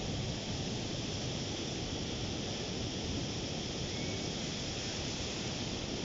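Ocean surf breaking and washing up a sandy beach, a steady rush of waves with no single break standing out.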